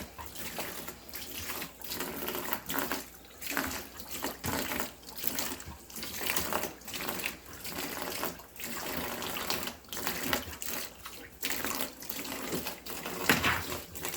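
Well water running from a tap and splashing in uneven surges, about once or twice a second, as a German Shepherd drinks from the stream.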